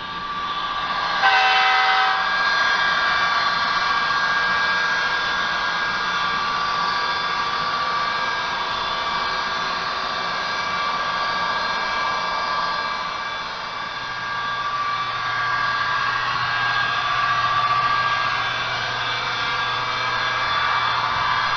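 Sound from an HO-scale model EMD SD70MAC locomotive: a short horn blast about a second in, then a steady diesel running sound as the train rolls along. A low hum joins about two-thirds of the way through.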